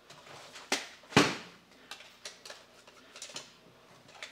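Small screwdriver clicking against a hard plastic toy robot while screws in its head are worked: one sharp click about a second in, then scattered lighter ticks.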